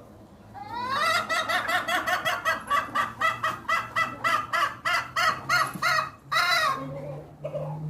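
Domestic hen making an unusual, strange call: a fast string of short pitched notes, about four a second, rising in pitch at the start and ending with one longer note.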